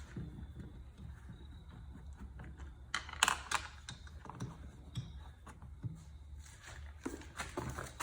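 Scattered light clicks and taps of a screwdriver and small screws being worked at a car door's trim panel, with a cluster of sharper clicks about three seconds in, over a low steady hum.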